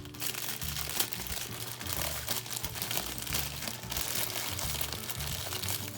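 Packaging crinkling and crackling irregularly as toy robots are unwrapped by hand.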